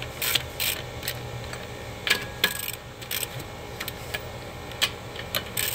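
Hand ratchet clicking in short irregular runs as the wheel's lug nuts are run down onto the studs.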